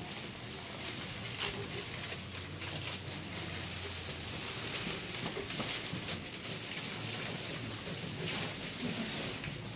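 Steady pattering and trickling of water, with many small drips and splashes and no single sound standing out.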